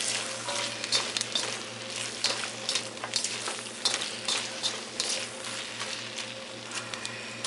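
Rice noodles and vegetables sizzling in a hot wok as a spatula stirs and tosses them, with a steady hiss and frequent sharp scrapes and clicks of the spatula against the pan.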